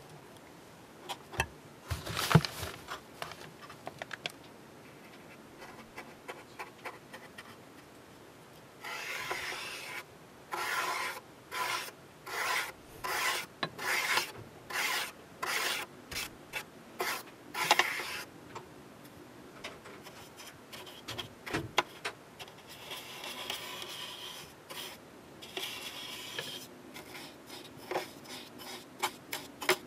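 Paintbrush bristles scrubbing weathering paint across a plastic model's hangar floor. In the middle come about a dozen quick back-and-forth strokes, roughly two a second, and after them fainter rubbing and small clicks. A sharp knock comes about two seconds in.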